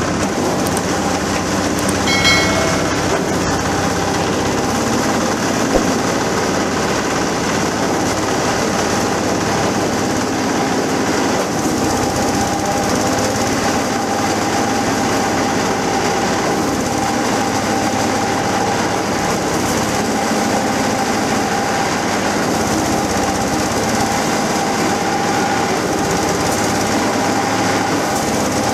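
Coconut-husk shredder (cocopeat machine) running steadily, driven by a stationary single-cylinder diesel engine, with the rattling, grinding noise of husk being shredded.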